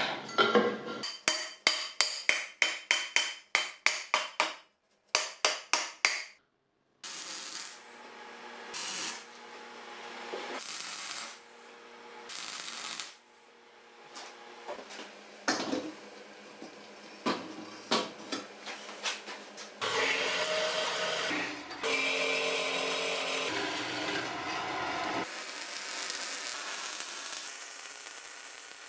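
A string of edited workshop sounds. It opens with a quick run of sharp knocks on steel, about three a second, then several short noisy bursts. Near the end comes the steady crackling hiss of MIG welding on steel.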